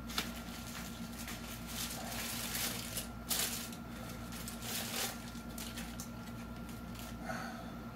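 Paper food wrapper crinkling and rustling as it is unfolded by hand, a steady run of crackles with louder bursts about three seconds and five seconds in.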